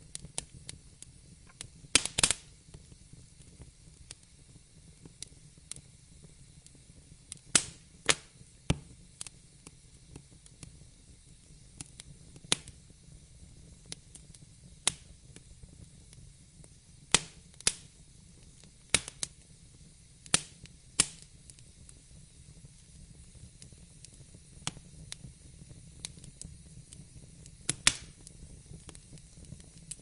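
Wood fire crackling: irregular sharp pops and snaps, a few much louder than the rest, over a low, steady rush of burning flames.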